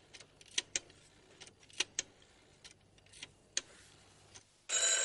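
Scattered sharp clicks from a payphone's rotary dial being turned and released as a number is dialled. Near the end a telephone bell starts ringing loudly, the call coming through.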